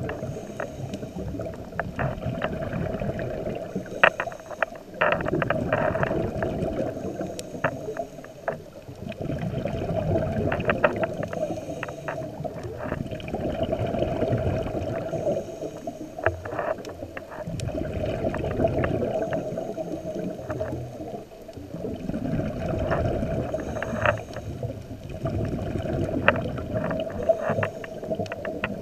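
Scuba diver breathing through a regulator, recorded underwater: a slow cycle of inhaling and exhaling that repeats about every four seconds, each exhale a muffled rush of bubbles with crackling pops.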